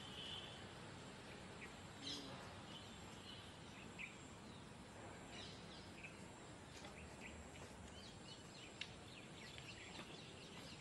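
Faint outdoor ambience with scattered small bird chirps, which thicken into a run of quick chirps over the second half.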